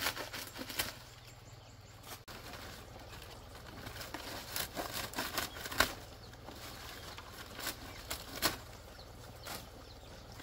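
Machete chopping at the dry palm-leaf thatch of a roof's edge: irregular chops with the rustle of dry leaves.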